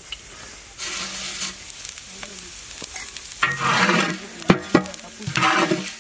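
Cumin seeds sizzling in hot oil in a large metal pot, with a metal spatula scraping and stirring them across the pot's bottom in two louder rushes. There is a sharp clink of the spatula against the pot midway.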